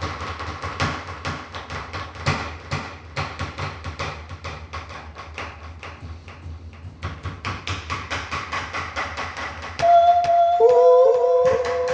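Rapid, uneven tapping and clicking, several taps a second, from keys being pressed fast on an electronic keyboard. Near the end, held electronic keyboard notes come in louder, two or three tones sounding together with a slight wobble in pitch.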